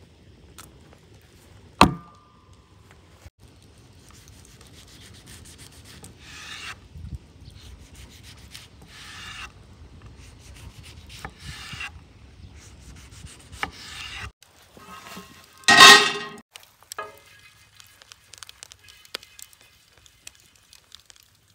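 A knife slicing a tomato on a wooden cutting board: a sharp knock, then about four drawn slicing strokes of a second or so each. Later a single loud clatter, followed by faint sizzling of butter melting on a hot cast-iron griddle.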